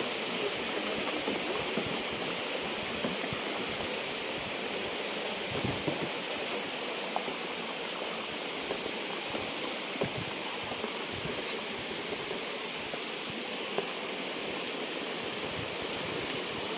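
Steady rushing of a small waterfall, water running down over rock, with a few faint knocks.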